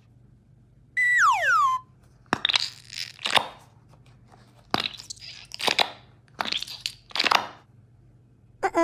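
A falling whistle-like sound effect about a second in, then three crunching, crackling squeezes of about a second each from a hand squeezing a mesh-covered squishy stress ball. A short pitched blip comes at the very end.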